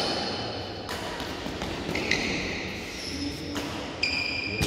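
Badminton rackets striking a shuttlecock back and forth in a rally: about four sharp hits roughly a second apart, two of them followed by a ringing ping.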